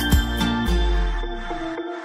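Background music with a steady beat of about two strikes a second; the bass and beat fade out about a second and a half in, leaving lighter, higher notes.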